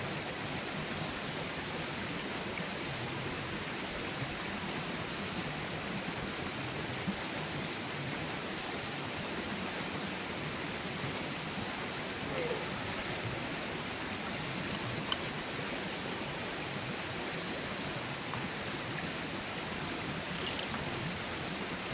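Steady rushing background hiss with a few faint clicks as a grease fitting is threaded back into a mini excavator's track tensioner by hand. Near the end comes a short burst of clicks from the wrench snugging it down.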